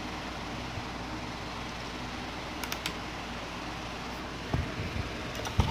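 Light metallic clicks as .22 rimfire cartridges are dropped one at a time through the loading port into a Remington 550's tubular magazine. Louder handling knocks come near the end, and a steady hiss runs underneath.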